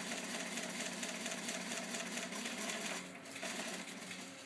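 Home-built RepRap 3D printer running: its stepper motors buzz steadily with rapid ticking as the print head moves.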